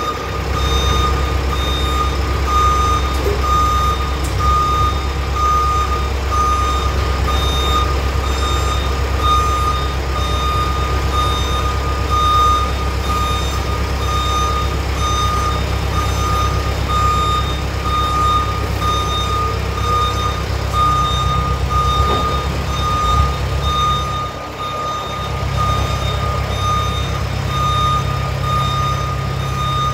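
SkyTrak 10054 telehandler reversing: its backup alarm beeps steadily and evenly over the low running of its engine, which eases off briefly near the end.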